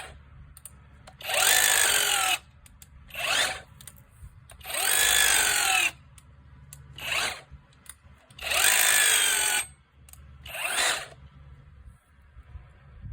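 Hammer drill boring aeration holes into lawn soil: three runs of about a second each, the pitch dropping during each run, and each followed a moment later by a shorter burst.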